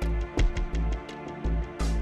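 Background music with sustained notes over a steady beat of heavy bass drum hits, with a short swoosh just before the end.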